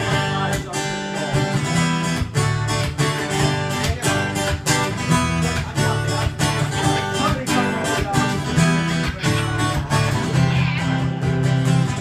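Acoustic guitar strummed in a steady, even rhythm, with no singing over it: an instrumental break between verses of a song.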